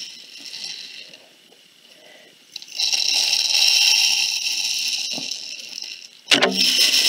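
Dry rice grains pouring into and running down a cardboard paper-towel-tube rain stick lined with aluminium foil spirals: a steady, rain-like hiss that starts about two and a half seconds in and lasts about three and a half seconds.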